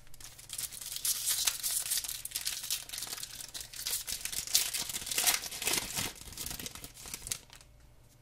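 The foil wrapper of a 2007-08 O-Pee-Chee hockey card pack being crinkled and torn open by hand, a dense crackling that dies away about seven and a half seconds in.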